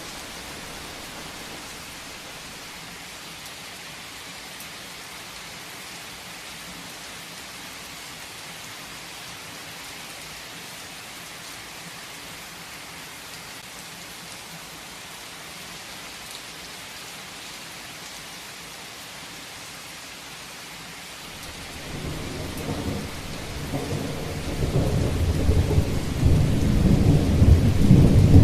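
Heavy rain falling in a steady hiss; late on, a long rumble of thunder builds and grows loudest near the end.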